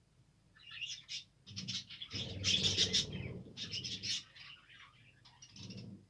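A flock of budgerigars chattering and chirping in quick overlapping bursts. The chatter starts about half a second in, is loudest around the middle, and thins out toward the end.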